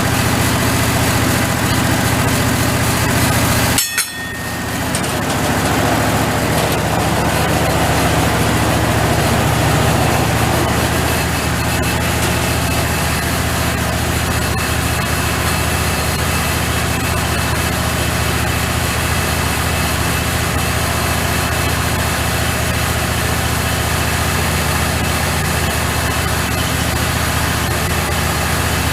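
Wood-Mizer portable band sawmill running steadily under engine power, with a momentary break about four seconds in.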